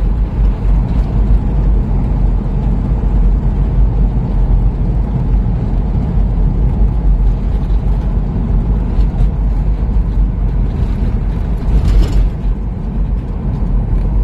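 Steady low rumble of a car driving slowly, heard from inside the cabin: engine and tyre noise on the road surface, with a brief louder rush about twelve seconds in.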